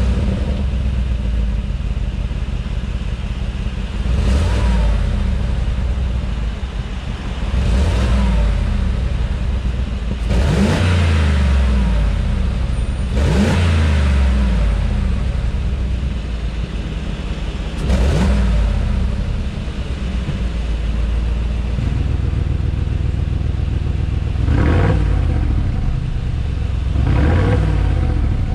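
Mercedes-AMG G63's twin-turbo V8 with a Capristo aftermarket exhaust, idling and blipped about seven times, each rev rising and falling back to idle. The exhaust valves are closed for most of it and open near the end, where the idle sounds fuller.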